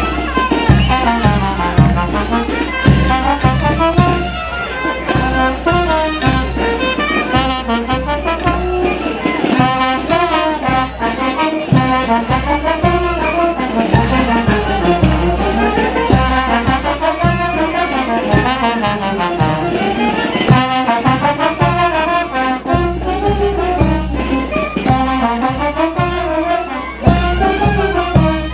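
Brass band of trumpets and trombones playing a majeños dance tune over a steady drum beat.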